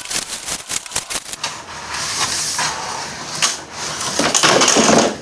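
A parcel being opened by hand: packaging rustling and crackling with scattered clicks, then a louder burst of rustling near the end.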